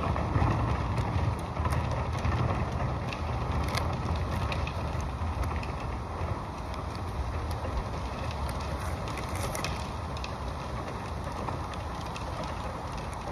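Peel-and-stick butyl flashing tape being handled on a roof, with many small crackles and ticks over a steady low rumble.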